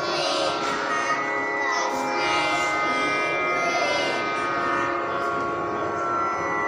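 Young children's voices singing a prayer together, over sustained electronic keyboard chords.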